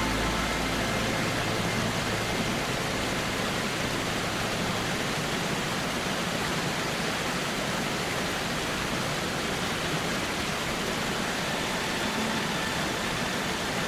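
Steady, even rush of falling water from a waterfall, with no breaks or distinct events.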